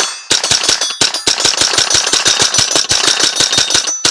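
Davidson Defense 'FlowerStone' 16-inch AR-15 in .22LR firing a fast string of shots, about six or seven a second, with a short break about a second in.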